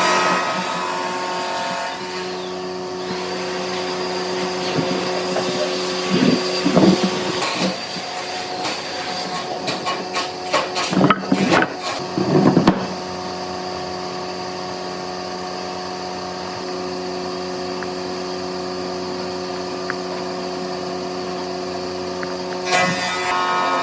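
Electric power tool motor running with a steady hum. Irregular louder scraping noises come over it from about six to thirteen seconds in, as the tool works the wood.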